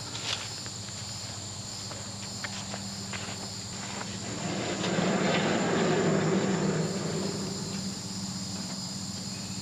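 Small gas engine of a Harbor Freight bandsaw mill running steadily, growing louder for about two seconds in the middle, with insects droning steadily.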